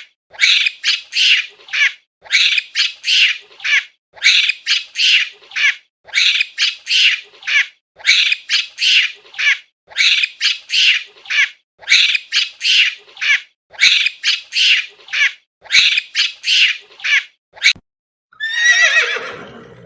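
A bird squawking in repeated runs of about five harsh calls, one run roughly every two seconds. About a second and a half before the end, a horse's whinny starts, falling in pitch.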